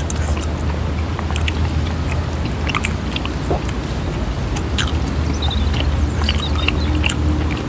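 Close-miked chewing and lip-smacking as grilled chicken is eaten by hand: many short wet clicks and smacks, irregular, over a steady low hum.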